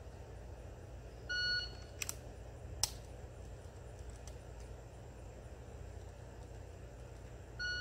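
Shot timer beeping to start a dry-fire run, then beeping again 6.3 seconds later at the par time. In between come a few sharp clicks and knocks from the pistol being drawn and dry-fired.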